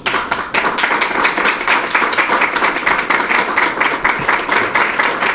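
A small audience applauding: many hands clapping in a dense, steady patter that breaks out suddenly.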